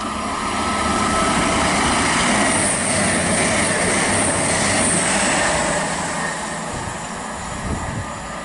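A CrossCountry Class 221 Super Voyager diesel multiple unit passes through the station at speed. The rush of train and wheel noise swells, with a high hiss from the wheels on the rails at its loudest a couple of seconds in, then slowly fades as it goes by.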